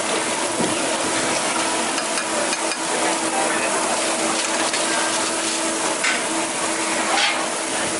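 Ramen-noodle buns, burger patties and eggs sizzling on a hot flat-top griddle, a steady hiss of frying with a low steady hum underneath.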